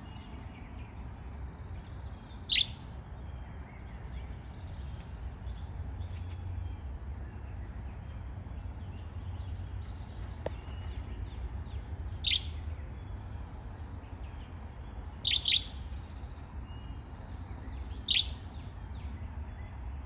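Pet budgerigars giving short, sharp chirps: five spread-out calls, two of them in quick succession. Faint high twittering and a steady low rumble run underneath.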